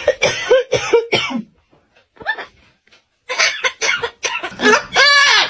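A parrot making a run of cough-like sounds, short harsh hacks in two bouts with a pause of about two seconds between them.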